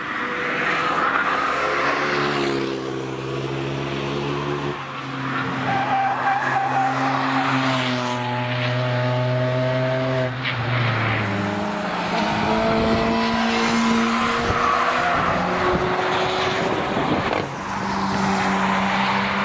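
Several cars passing a racetrack one after another under hard acceleration, engines climbing in revs and dropping in pitch at each upshift, several times over.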